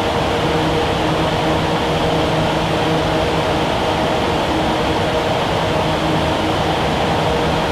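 Bank of large wind-test fans blowing at about 100 mph: a steady rush of air with a constant hum of several low tones.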